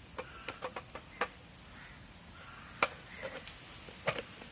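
Sharp plastic clicks and snaps as the clear plastic lens of a Honda Activa speedometer is prised off its clip locks. The clips are hard and brittle with age. Irregular clicks come in quick succession, with the loudest single snap near three seconds in and a double click near the end.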